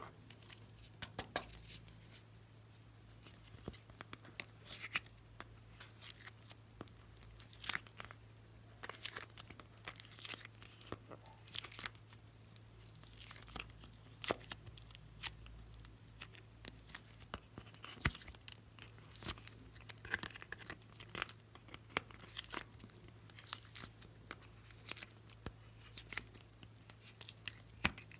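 Soft modelling clay being pried and pulled out of a thin plastic mould tray and squeezed in the hand: irregular small crackles, crinkles and tearing sounds from the flexing plastic and the parting clay, over a faint steady low hum.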